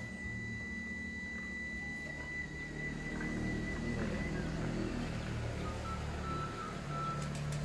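Background music of long held notes, with a thin high tone for the first few seconds.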